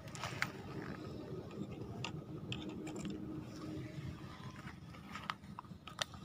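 Faint low rumble of outdoor background noise with a handful of light, scattered clicks and scrapes from the phone being handled as it pans over the bank and the fishing rod.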